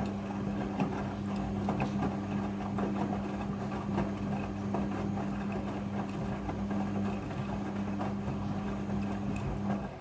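Midea front-loading washing machine running its first rinse: the motor hums steadily as the drum turns and the wet laundry tumbles, with many small knocks. The hum stops near the end.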